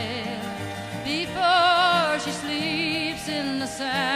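Background music: a song with sung notes held with vibrato.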